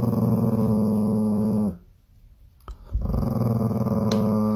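Small dog growling with bared teeth, a warning growl. There are two long growls, the first ending under two seconds in and the second starting after a pause of about a second.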